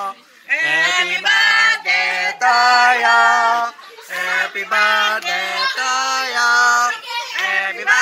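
Several people singing the birthday song together in held notes, phrase by phrase with short breaks, after a brief pause at the start.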